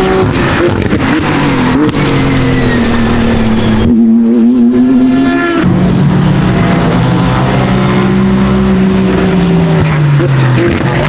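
BMW M4 GT3 race car's twin-turbo straight-six engine running hard on track, its pitch sliding down and up as it passes, then falling away near the end.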